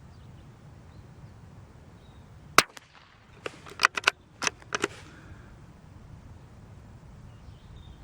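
A single shot from a Brno/CZ 452 bolt-action .22 LR rifle, a sharp crack, followed about a second later by a quick series of metallic clicks as the bolt is worked to eject and rechamber.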